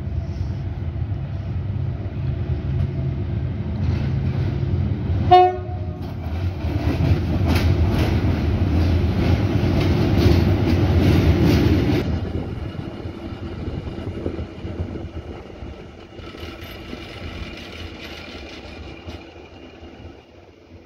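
SM42 diesel-electric shunting locomotive running light: its diesel engine drones as it approaches and it gives one short horn blast about five seconds in. It then passes close by, loudest, with wheels clattering over the rail joints, and the sound fades away as it recedes.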